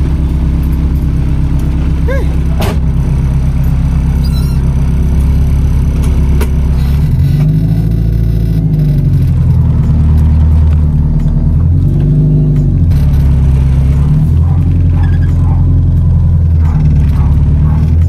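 Honda Civic EG engine running at idle, heard inside the car's cabin, with the revs rising and falling briefly twice.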